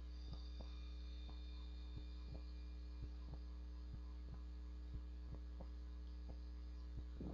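Steady electrical mains hum with faint ticks about three times a second, and a slightly stronger tick near the end.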